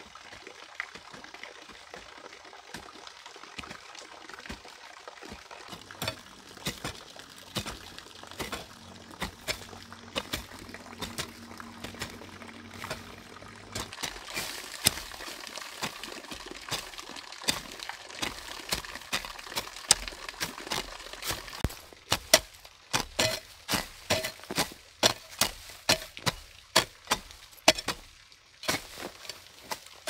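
Water pouring and trickling, with scattered sharp clicks, then a regular run of louder knocks about two a second in the last several seconds.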